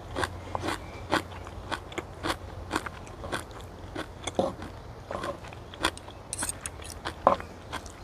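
A person chewing a mouthful of stir-fried sea kale close to a clip-on microphone: crisp, regular crunching about twice a second, with a few louder crunches.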